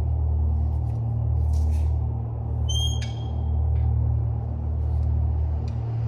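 A steady low hum of running machinery, with a brief high squeak and a click about three seconds in.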